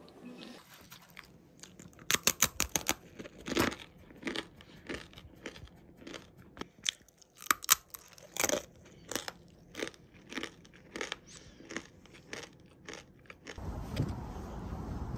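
Crunching on dry, uncooked instant ramen noodles eaten as a snack: a run of sharp, irregular crunches and chewing. Near the end a louder low background noise comes in.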